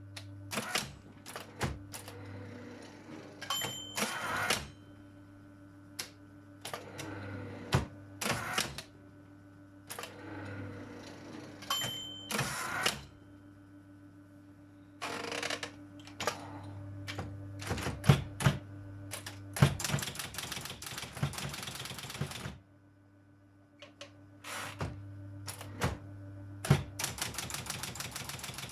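Robotron 202 typewriter being operated: scattered sharp mechanical clicks and clunks, with two short ringing tones about 4 and 12 seconds in, and fast runs of rapid clicks around 20 seconds in and again near the end.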